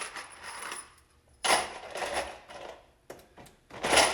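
Loose screws rattling and clattering as they are poured into a plastic Packout organizer bin, in two bursts: one about a second and a half in and a second near the end, with lighter clinking between.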